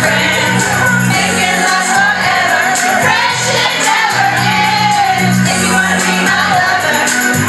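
A group of women singing karaoke together into microphones over a loud pop backing track with a steady bass line.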